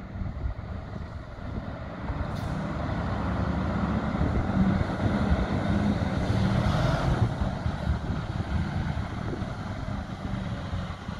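A heavy fire engine's diesel engine pulling away and driving off, growing louder to a peak about halfway through and then easing a little, with a brief hiss of air about two seconds in.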